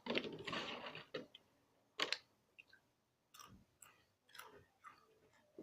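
Crunchy hot potato chips being chewed, with irregular crisp crunches every second or so.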